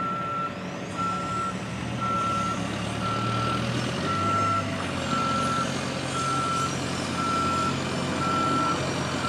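Truck reversing alarm beeping steadily, one single-pitched beep about every second, over a vehicle engine running low underneath.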